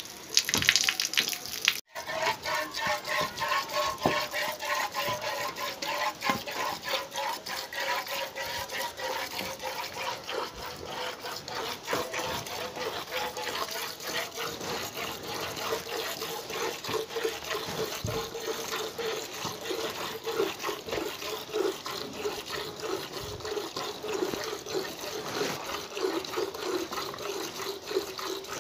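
Cow being milked by hand into a steel bucket: quick squirts of milk hitting the pail and the milk in it, in a steady rhythm. A ringing tone from the pail slowly falls in pitch.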